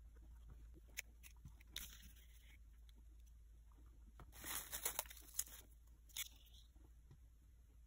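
Faint handling sounds of hands working modelling clay on a cutting mat: scattered small taps and clicks, with a burst of crinkly rustling about four seconds in and a shorter one near six seconds.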